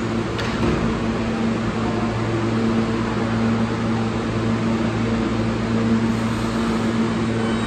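R160A subway train standing at the platform, its air-conditioning and onboard equipment giving a steady hum with a low drone. There is a short click about half a second in.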